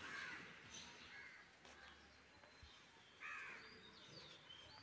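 Faint crows cawing, a few short caws with the loudest about three seconds in, and faint small-bird chirps near the end.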